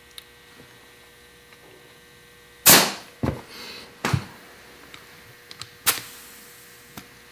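Short bursts of compressed air hissing at the Schrader valve on an AN hose test plug as the hose is pressurised to about 20 psi, with small clicks of the air fitting on the valve. There are three sharp bursts, the loudest about a third of the way in.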